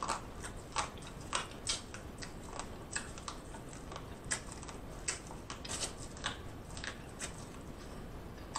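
Close-mic'd biting and chewing of boiled corn on the cob: irregular short crisp crunches and mouth clicks, about one or two a second.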